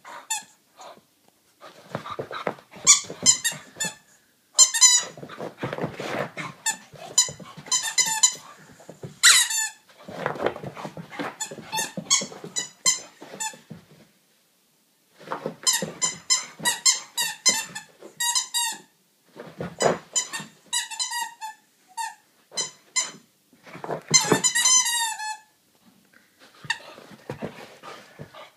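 Rubber squeaky toy being chewed by a wheaten terrier puppy, giving rapid runs of short high squeaks broken by a few brief pauses.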